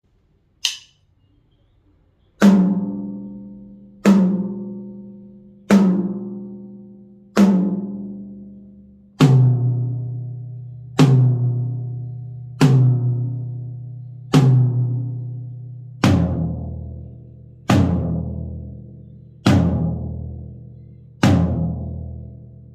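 Drums fitted with Evans Onyx heads struck one at a time, each hit ringing out and fading before the next, about every 1.7 seconds. Twelve hits in three sets of four, each set lower in pitch than the last, as if working down from higher to lower toms.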